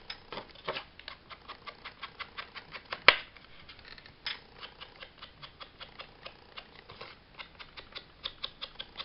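Round ink blending tool dabbing on an ink pad and tapping along the edges of a paper tag to darken them with ink: quick light taps, about three or four a second, with one sharper click about three seconds in.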